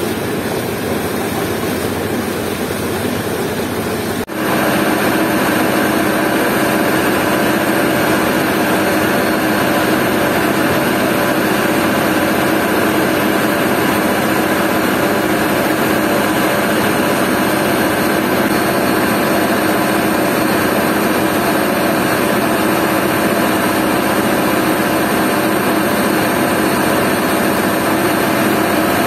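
Boat engine running steadily, heard from on board. About four seconds in there is a brief dip; after it the engine is louder and steadier, with a hum of several steady tones.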